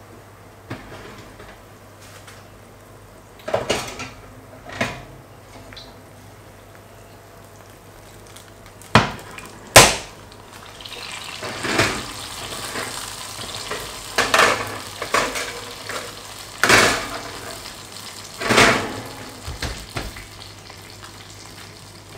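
Oven and glass roasting dish being handled: a few sharp knocks and clatters, the loudest about ten seconds in as the dish comes out and is set down. From then on the hot fat around the roast pork sizzles steadily in the dish, with more knocks as the dish and oven door are handled.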